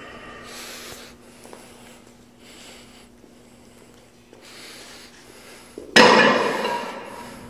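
Quiet gym room with a faint steady hum, then about six seconds in a sudden loud metallic clank as metal weight plates are pulled off a plate tree, dying away over a second or so.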